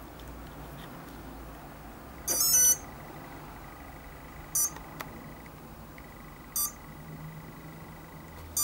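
Electronic speed controller beeping through a brushless outrunner motor: a short run of stepped start-up tones about two seconds in, then single short beeps about every two seconds, typical of an ESC armed and waiting for a throttle signal.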